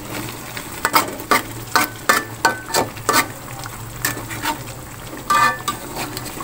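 Metal spatula stirring chicken feet in a spiced sauce in a metal wok, clinking and scraping against the pan about a dozen times in quick succession, with a louder ringing clang about five seconds in. The sauce simmers quietly underneath.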